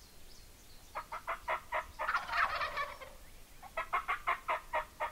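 Wild turkey tom gobbling once, about two seconds in, between two runs of quick, evenly spaced yelps.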